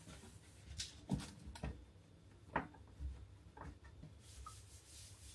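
Faint kitchen-cleaning sounds: a handful of light knocks and clicks as things on a worktop are handled while it is wiped down, then a soft rubbing hiss near the end.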